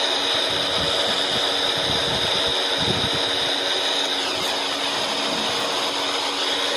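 Three-bladed table fan running steadily on high speed: an even rush of air with a constant hum, and a few low irregular rumbles about two to three seconds in.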